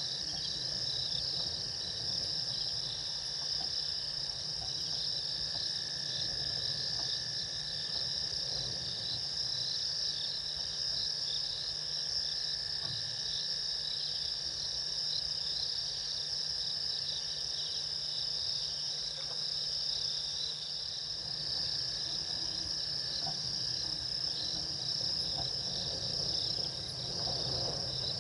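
Night insect chorus: crickets trilling continuously in a steady, high-pitched wash, with a second fainter steady insect tone lower down.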